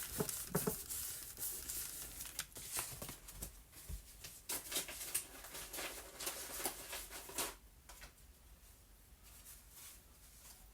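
Paper being handled: rustling and crinkling with small taps as a glued paper piece is placed and pressed onto a journal page. It stops about seven and a half seconds in.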